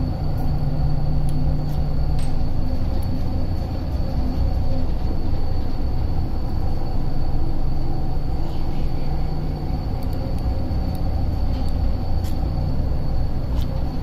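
Steady low drone of shipboard machinery, with a thin high tone running through it. A few faint metallic clicks come from hand tools working on a hydraulic flow control valve block.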